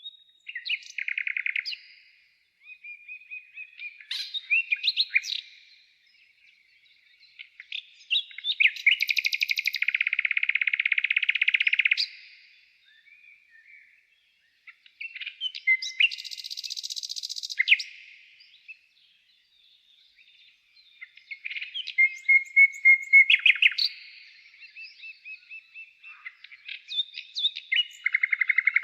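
A songbird singing: a series of varied phrases of chirps and fast trills, each a few seconds long, with pauses of a second or two between them.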